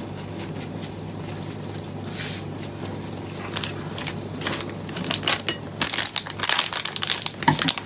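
Plastic spice packets crinkling and rustling as they are handled and shaken out over a bowl of raw chicken. The crinkling is sparse at first, then dense and louder from about five seconds in.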